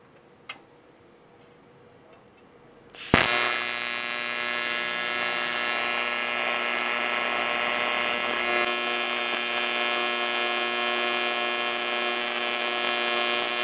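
AC TIG welding arc on thin aluminium from a Sanjoe TIG200 AC/DC welder, set to 120 Hz AC frequency and 35 AC balance. The arc strikes with a sharp crack about three seconds in, then holds a loud steady electric buzz.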